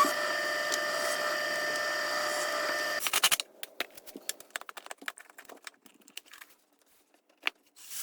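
Cordless drill running steadily with a constant whine, cutting off about three seconds in. Scattered light clicks and taps follow.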